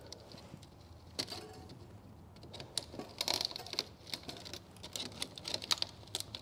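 Needle-nose pliers picking and pulling at the braided wire-mesh cover of a semi-truck exhaust flex pipe: small metallic clicks and scrapes. They come in clusters about a second in, around three seconds in, and again near the end.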